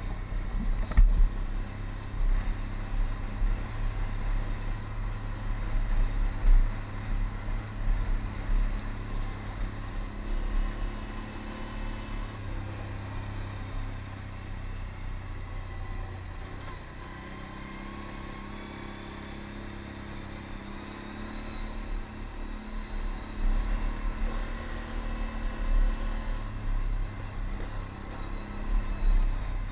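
Can-Am Outlander ATV engine running under way on a gravel track, its engine note rising and falling with the throttle and easing off for several seconds midway, with low rumbling thumps from the rough ride.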